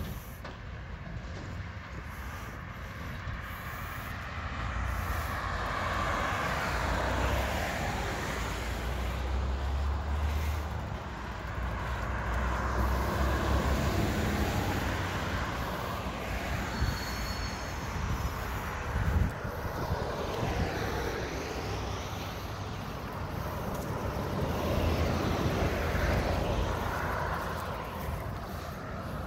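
Road traffic: several cars pass one after another, each swelling and fading as it goes by, over a low steady engine rumble from a garbage truck working further down the road. A brief thud comes about two-thirds of the way through.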